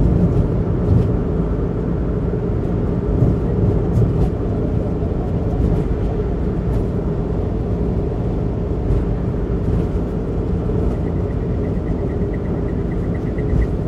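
Steady tyre and road noise of a car cruising on an expressway, heard from inside the car. A faint, rapid, high ticking comes in during the last few seconds.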